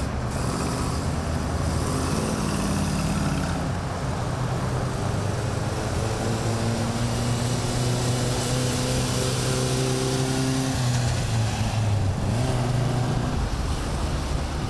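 Engines of classic cars running as a column of them drives slowly past, a steady low rumble with one engine note holding and then shifting in pitch in the middle.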